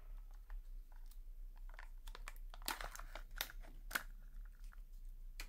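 Ink cartridge's wrapper being opened by hand: faint crinkling and crackling, with a few sharper snaps.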